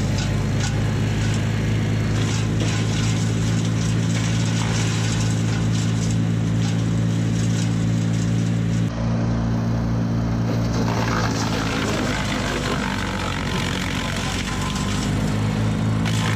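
Engine running steadily at an unchanging pitch.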